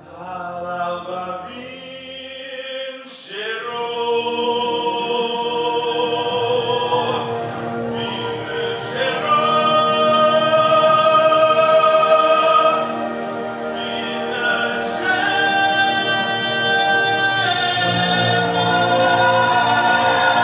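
Music: a man singing long held notes into a microphone over sustained backing music, building louder a few seconds in and again about nine seconds in.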